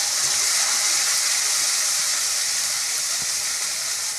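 Onion and garlic paste frying in hot oil in a wok: a steady sizzling hiss that eases slightly toward the end.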